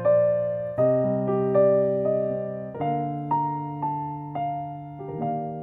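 Background piano music: slow chords struck one after another, each one fading before the next.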